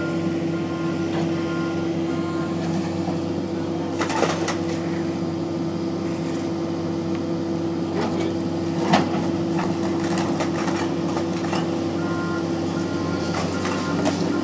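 Heavy demolition machinery running with a steady engine drone, a backup alarm beeping near the start and again near the end, and sharp crunching impacts about four and nine seconds in as the building is torn down.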